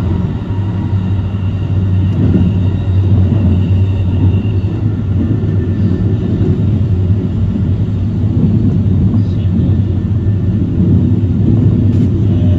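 Keikyu 2100-series electric train running at speed, heard from inside the front car: a steady, loud rumble of wheels on rails.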